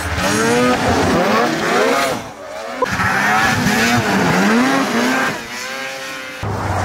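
Race snowmobiles' two-stroke engines revving hard as the sleds speed past close by, the pitch rising and falling with the throttle. The sound changes abruptly a couple of times as one sled gives way to another.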